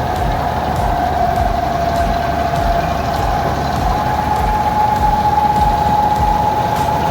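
Vishal combine harvester running steadily: a low engine rumble under a steady whine that rises slightly in pitch about four seconds in.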